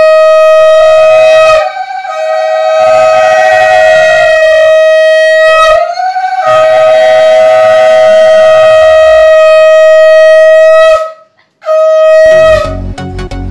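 Conch shell (shankha) blown in four long, loud, steady blasts with short breaks for breath, each starting with a slight upward swoop in pitch; the auspicious conch call of a Hindu blessing rite. Near the end, music with a beat comes in.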